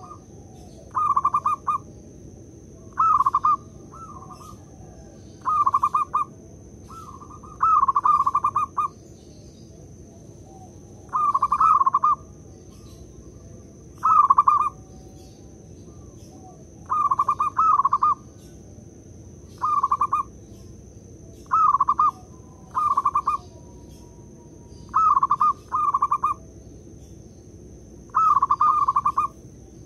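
Zebra dove (perkutut) calling: short phrases of quick cooing, one or two at a time, repeated every two to three seconds.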